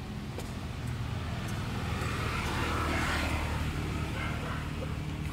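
Motor vehicle passing by: a steady low engine hum with noise that swells to a peak about three seconds in and then fades.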